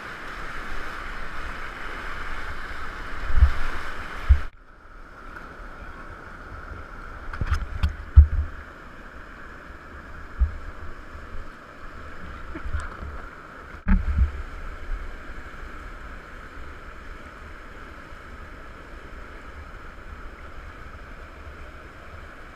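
Whitewater rapids rushing steadily, with irregular low thumps of water splashing against the camera during the first fifteen seconds or so. The sound drops abruptly about four and a half seconds in.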